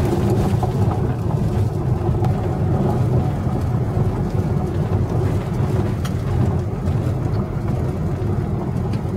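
Car rolling slowly along a gravel road, heard from inside the cabin: a steady low rumble of tyres and engine with scattered small ticks from the gravel.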